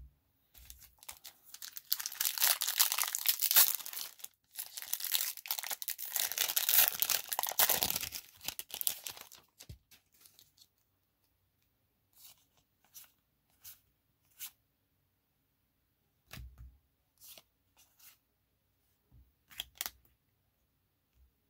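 A trading-card booster pack's wrapper being torn open and crinkled for about nine seconds, with a short pause partway through, followed by a few faint taps of cards being handled and set down.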